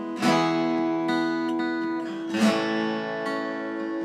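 Background music: acoustic guitar strumming, two chords about two seconds apart, each left to ring.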